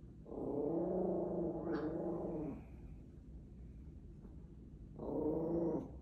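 Small Morkie (Maltese–Yorkie mix) dog growling: one long growl of about two seconds, then a shorter growl about five seconds in.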